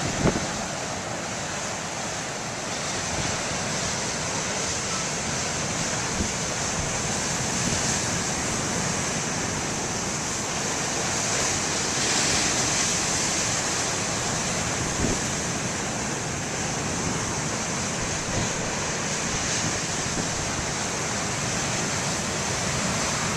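Heavy ocean surf breaking and rushing in a steady roar, mixed with wind on the microphone that adds a few brief buffets.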